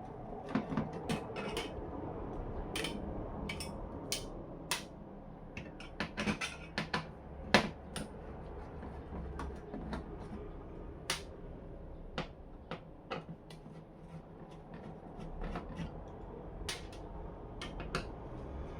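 Irregular clicks, taps and knocks of tools and plastic and metal parts being handled while a flat-screen TV is taken apart to reach its main board, with one sharper knock about halfway through.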